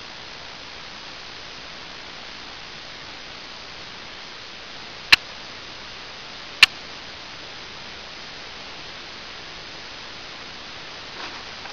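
Steady hiss, broken about halfway through by two sharp clicks about a second and a half apart.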